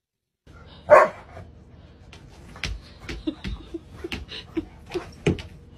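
A dog barks once, loudly, about a second in, followed by a string of short, soft vocal sounds and light knocks.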